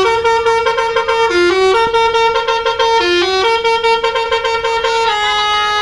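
Bus 'telolet' horn, a set of musical trumpet horns, playing a tune that steps between a few notes with fast stuttering repeats; near the end the notes waver, sag in pitch and fade.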